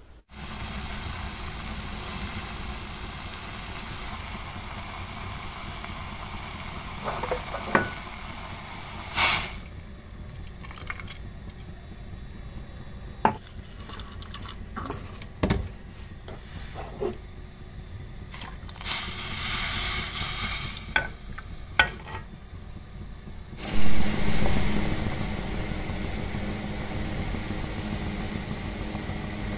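Kitchen sounds of masala chai being made in a steel saucepan on a gas stove: scattered clinks and knocks of utensils and a pour of milk. About two-thirds of the way in a steady hiss with a low hum starts as the chai heats on the burner.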